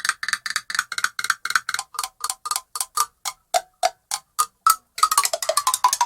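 Cartoon footsteps sound effect: pitched, wood-block-like taps stepping along about four times a second, then about five seconds in breaking into a fast run of quicker taps whose pitch slides downward.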